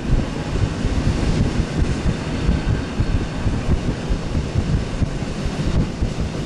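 EN57 electric multiple unit running along the line, heard from on board: a steady rumble of the wheels on the rails, with wind on the microphone at the open window.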